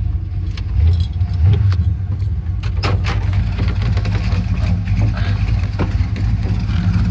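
1979 Chevy C10's built 350 V8 running at a steady idle, heard from inside the cab. Several sharp clicks and light rattles come over it as the cab is handled.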